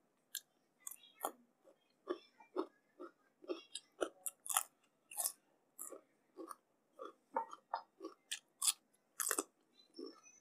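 Close-miked chewing of a mouthful of food, steady at about two chews a second, with sharp wet smacks from the lips and mouth.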